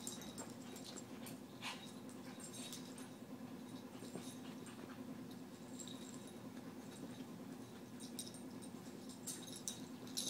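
A Shorkie and a Morkie play-wrestling on carpet: quiet scuffling with a few soft clicks and faint dog noises over a steady low hum.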